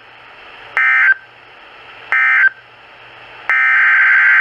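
Emergency Alert System SAME data bursts on NOAA Weather Radio: two short, harsh warbling bursts about a second and a half apart, the end-of-message signal. About three and a half seconds in, a longer burst of about a second follows: the data header announcing another alert. Steady radio hiss runs between the bursts.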